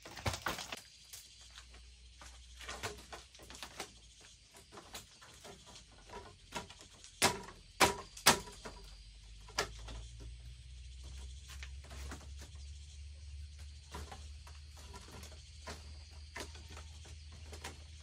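Irregular knocks and clicks, with three louder sharp knocks in quick succession about seven seconds in. A low steady hum sets in about ten seconds in.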